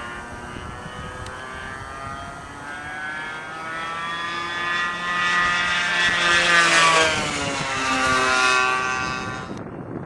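RC airplane's O.S. Max 120 engine and propeller running at high speed as the plane makes a pass. The whine climbs and grows louder to a peak about seven seconds in, then its pitch drops as the plane goes by.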